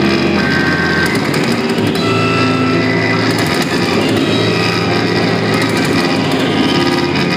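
Live noise music: a dense, loud wall of distorted sound with held droning tones that shift in pitch every second or two.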